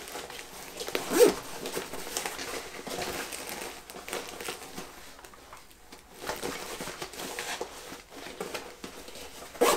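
Nylon fabric and webbing straps of an Agilite K19 plate carrier rustling and rubbing as they are handled, with scattered small clicks and a sharper click just before the end.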